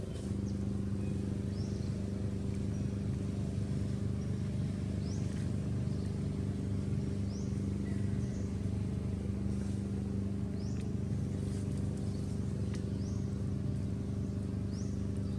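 A motor running steadily, a low hum with one constant tone, with short high rising chirps every second or two over it.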